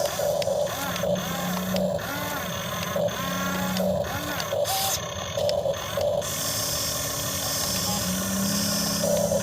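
Small electric motors and hydraulic pump of a radio-controlled excavator whining as it works, the pitch rising and falling in short glides with steadier low hums that switch on and off.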